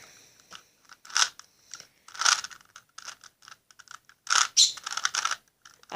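Plastic Rubik's cube being twisted to scramble it, its layers clicking and scraping in a few short spells of turning, about one and two seconds in and again near the end.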